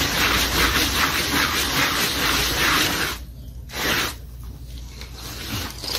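Block rasping back and forth over fresh cement render on a column, a dense gritty scraping that smooths and shapes the wet coat. It stops briefly about three seconds in, gives one more short stroke, then goes quieter.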